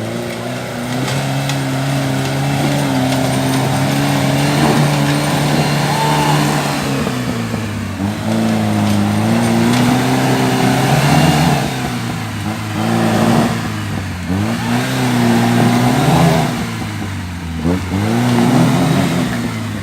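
Off-road vehicle's engine revving hard under load, held high for several seconds and then dropping and climbing again several times.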